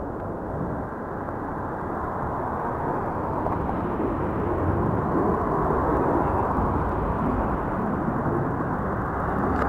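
Distant jet rumble from a Blue Angels display jet flying out of sight, swelling slowly to a peak about six seconds in and easing a little toward the end.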